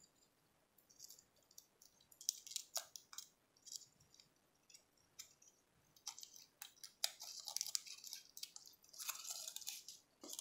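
Foil wrapper of a Hershey's Kiss crinkling and crackling as fingers peel it open. It comes in short bursts of rustle a couple of seconds in, then busier and denser through the second half.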